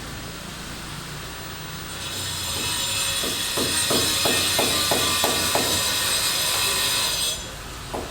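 Construction work: a loud, high hiss starts about two seconds in and stops abruptly near the end. Partway through it comes a run of about ten knocks, roughly three a second, like hammering.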